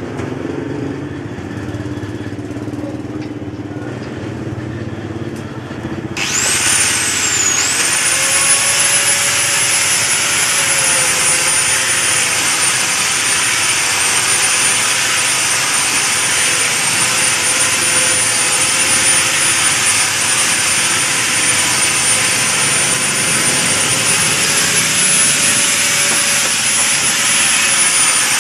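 An electric woodworking power tool starts about six seconds in, its motor spinning up with a high whine, then runs on steadily with a loud rushing noise. Before it starts there is only lower, mixed workshop noise.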